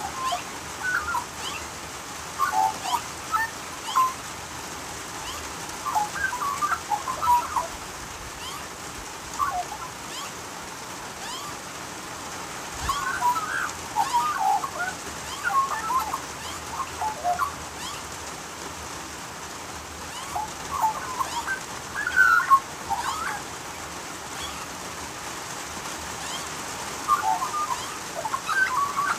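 Australian magpie calling in short phrases of fluting, gliding notes, seven or so phrases with pauses between them, over a steady hiss of rain.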